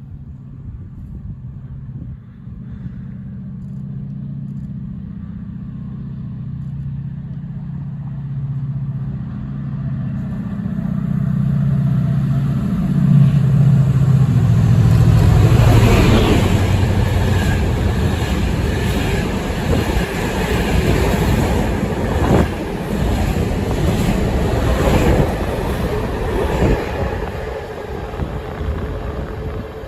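Class 68 diesel-electric locomotive's Caterpillar V16 engine working under power, its note growing louder as it approaches and dropping in pitch as it passes about 13 seconds in. Then the train rolls by with a steady rumble and repeated wheel clatter over the rail joints.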